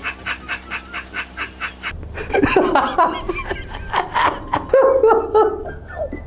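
A man laughing hard in rapid, even bursts, about five a second. About two seconds in this gives way to another man's laughter, which is more broken and uneven in pitch.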